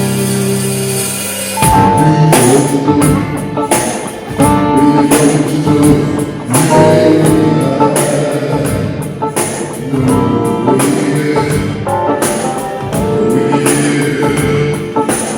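Live rock band playing: a held chord for about the first second and a half, then the full band comes in with drums and guitar in a steady beat.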